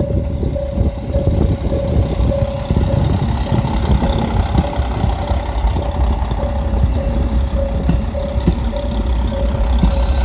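An engine running steadily at idle with a low rumble. Above it, a mid-pitched tone pulses on and off about two to three times a second.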